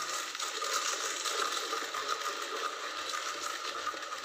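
Hand-cranked plastic chili cutter chopping dried red chilies into flakes: continuous crunching and crackling as the crank is turned.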